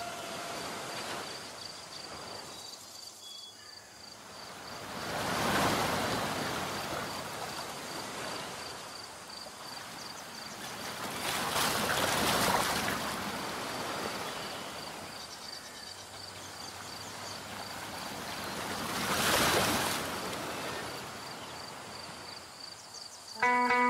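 Waves washing in and breaking in slow surges, each swell rising and falling about every seven seconds. Music with a guitar cuts in just before the end.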